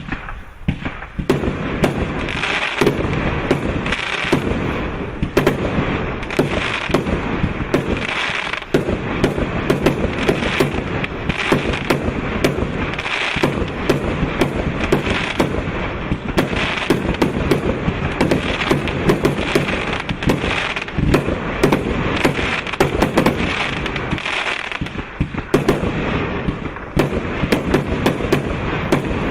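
152-shot automatic fireworks cake (SOIRÉE V.I.P®) firing a dense, continuous salvo: sharp launch and burst bangs come several a second, with only brief lulls.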